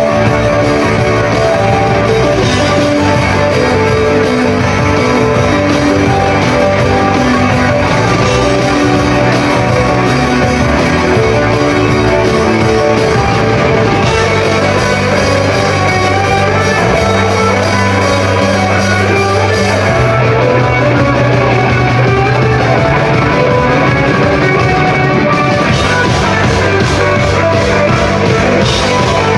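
Rock band playing live with electric guitar, bass and drums, loud and dense throughout. Past the middle the high cymbal wash thins out for a few seconds while long low bass notes hold.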